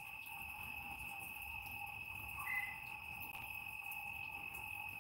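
Faint, steady night chorus of pond frogs and insects: a constant high-pitched trill over a fainter lower one, with one short higher chirp about two and a half seconds in.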